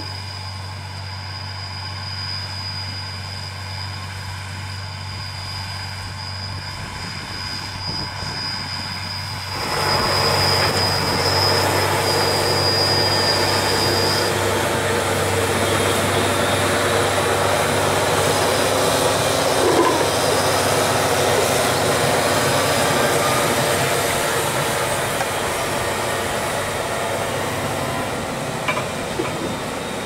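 Fendt 718 Vario tractor pulling an eight-furrow Ovlac plough, with a Kuhn cultivator on the front: a steady engine drone with a thin high whine at first. About ten seconds in, the sound turns much louder and denser as the tractor is close, the running engine mixed with the noise of the implements working the soil.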